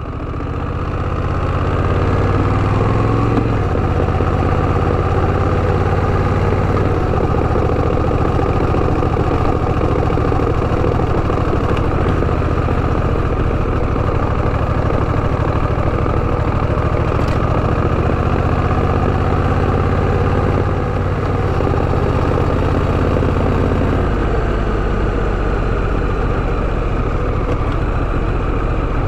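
Honda Rebel 1100 DCT's parallel-twin engine running steadily, fading in over the first two seconds, with small shifts in its low drone at a few points.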